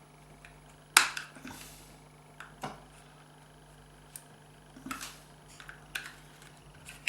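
Sharp clicks and small knocks of a reverse light switch being prised open and handled with small tools, the loudest about a second in and a few lighter ones after.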